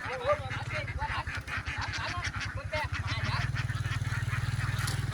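A flock of ducks quacking over one another, many short calls packed together that thin out after about three seconds. Under them a low, steady engine drone runs throughout and gets louder about three seconds in.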